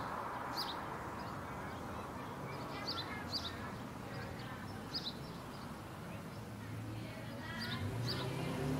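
Songbirds giving short high chirps every second or two over a steady outdoor background rumble.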